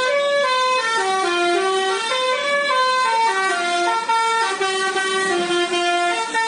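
Musical truck horn playing a tune: one held note after another, each lasting about half a second and stepping up or down in pitch, with no breaks between them.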